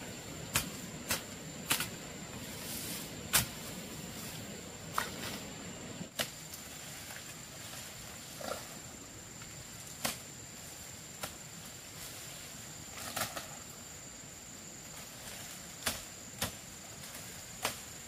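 Scattered sharp clicks and knocks at irregular intervals, about one every one to two seconds, over a steady high-pitched hum and a low background hiss.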